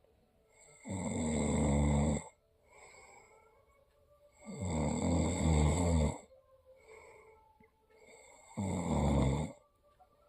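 A person snoring: three long snores, each a second or more, about four seconds apart, with quiet breathing between them.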